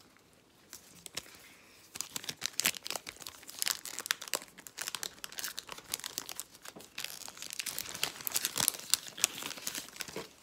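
Foil wrapper of a trading-card pack crinkling and tearing as the pack is opened, a dense run of crackles starting about two seconds in.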